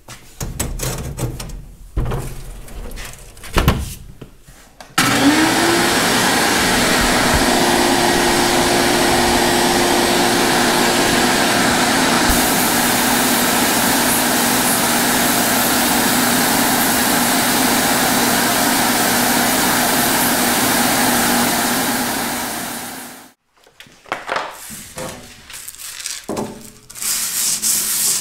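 Abrasive blasting cabinet running: a loud, steady hiss of air and grit with a hum underneath, blasting rust off a Farmall M carburetor throttle body for about seventeen seconds. Before it come a few knocks as the part is handled in the cabinet. Near the end, the cast throttle body is rubbed back and forth on sandpaper to lap its gasket surface flat.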